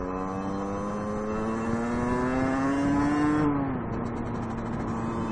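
A 50cc two-stroke motorcycle engine pulls under acceleration, its note rising steadily. About three and a half seconds in the pitch drops quickly, and the engine runs on at a steady lower note.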